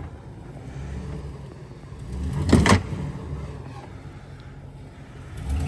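Recovery vehicle's engine running low and steady, with one short loud clank about two and a half seconds in; the engine grows louder near the end.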